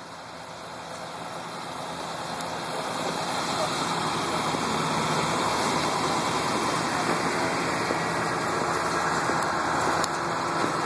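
Fire engines' diesel engines idling steadily, growing louder over the first few seconds, with indistinct voices.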